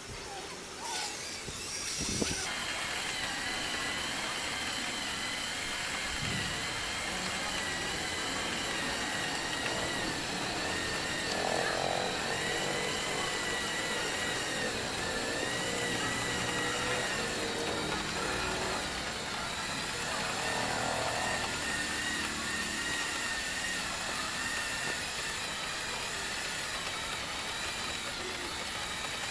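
Small electric LEGO motors of a bridge-building machine whirring steadily with a thin whine that wavers slightly in pitch. A few light knocks come in the first two seconds before the whirring settles in.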